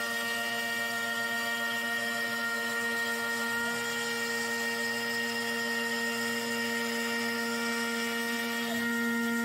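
A CNC router's spindle at 12,000 rpm, its bit cutting a shallow profile pass through MDF at a 50 inches-per-minute feed. It makes a steady whine with a slight shift in tone about four seconds in and again near the end, as the cut turns a corner.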